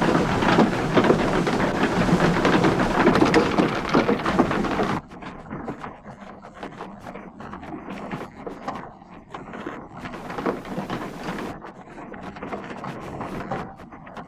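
Rushing, splashing water, a dense steady rush that cuts off suddenly about five seconds in. After it come quieter, irregular knocks and rattles.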